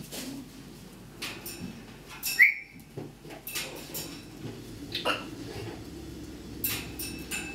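Pet parrot imitating fireworks: scattered sharp clicks and short whistles. The loudest is a sharp pop that ends in a brief falling whistle about two and a half seconds in, and another quick falling whistle comes about five seconds in.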